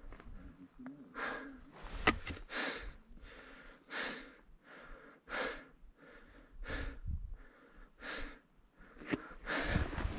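A hiker breathing hard, about one loud breath a second, out of breath from a steep climb at high altitude. A sharp tap of a trekking pole on rock comes about two seconds in, and footsteps scuff on the stone near the end.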